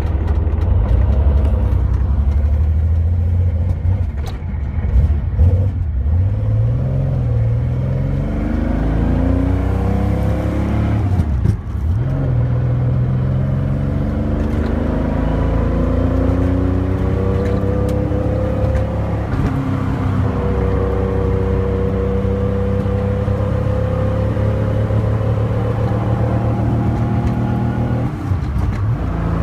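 Car engine heard while driving: its pitch climbs as the car accelerates, falls sharply at a gear change about eleven seconds in, climbs slowly again, then holds steady at a cruise. There is a short dip near the end, like a lift off the throttle or another shift.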